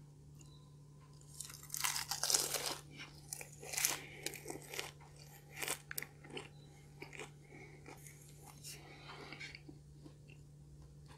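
A person biting into and chewing a crispy pastry hazelnut cheese tart. A burst of loud crunching comes about two seconds in, then scattered crunches, then softer chewing that dies away near the end.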